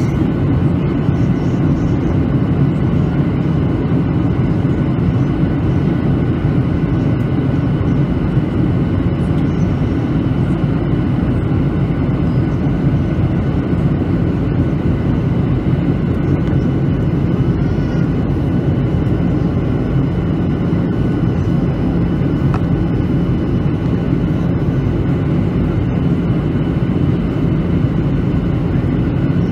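Steady cabin roar inside a Boeing 737-900 in flight, heard from a window seat over the wing: its CFM56 turbofan engines and the airflow over the fuselage, with a few faint steady whining tones above the low rumble.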